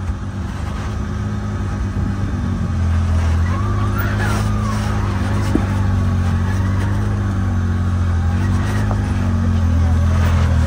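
Can-Am Maverick X3 side-by-side's turbocharged three-cylinder engine running at low, steady revs while the machine creeps down a steep slope, its pitch wavering slightly and getting louder about three seconds in.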